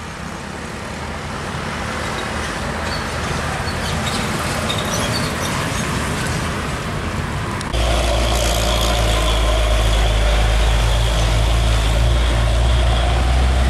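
Old Nissan Condor diesel truck engine running as the truck drives through a bend, with road and traffic noise, growing slowly louder. About eight seconds in, a sudden cut to a louder, deep, steady engine rumble of passing traffic, a scooter and a truck.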